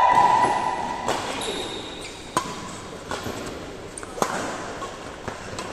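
Badminton rackets striking a shuttlecock in a doubles rally: about five sharp, short hits roughly a second apart. A held call fades out about a second in.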